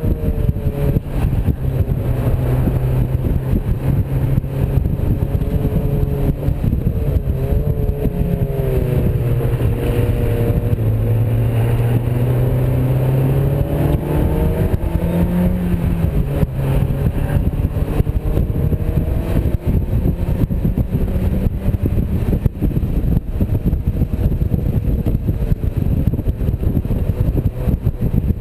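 Sports car's engine heard from the open cockpit under load, its pitch rising and falling as the car accelerates and eases off, over steady wind and road noise.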